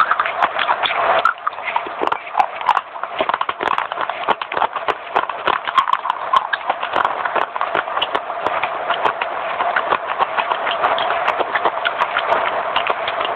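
Fast, steady crunching of someone chewing crispy baked clay: a dense stream of small cracks with no pause.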